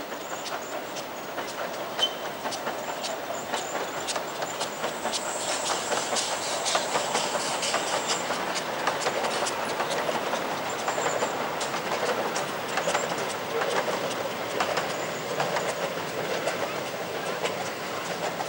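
A 15-inch gauge miniature steam train, hauled by a half-size replica of the K-1 Garratt locomotive, running past on its track: an irregular stream of wheel clicks over the rail joints. A thin high-pitched squeal comes in from about five to eight seconds in.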